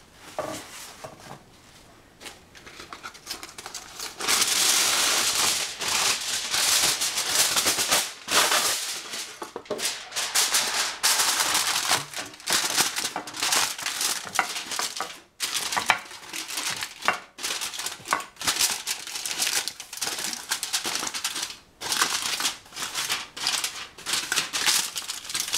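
Non-stick aluminium foil crinkling and rustling in irregular bursts as it is handled and pressed into a baking pan, quieter for the first few seconds and then loud and continuous with short breaks.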